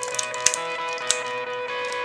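Music with plucked, guitar-like notes and a few sharp clicks over it, the loudest click about half a second in.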